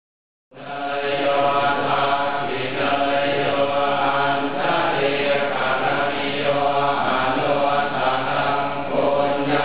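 Group of Thai Buddhist monks chanting together in unison, a steady, continuous chant of many men's voices that starts suddenly about half a second in.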